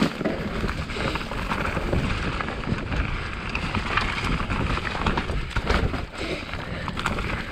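Specialized Enduro mountain bike descending a dirt trail: tyres rumbling over the ground with steady wind buffeting on the microphone, and frequent quick rattles and knocks from the bike over rough terrain.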